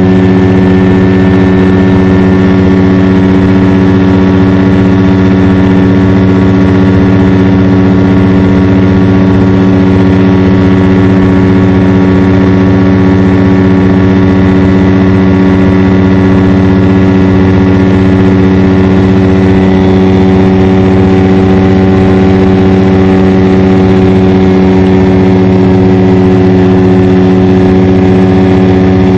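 Rans Coyote ultralight's engine and propeller running steadily in cruise flight, heard from inside the cockpit: a loud, even drone that holds one pitch throughout.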